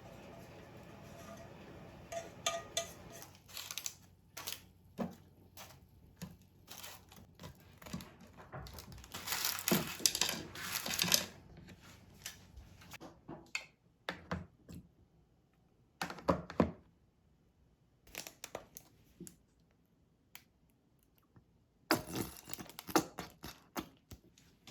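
Intermittent handling noises: short crinkling and tearing stretches mixed with light clicks and knocks, with quiet gaps between them.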